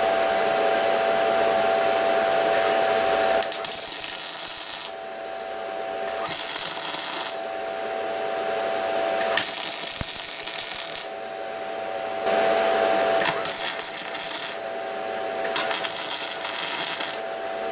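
MIG welder tack-welding steel nuts onto steel rods: the arc crackles and sizzles in repeated stretches of one to two seconds, over a steady whine.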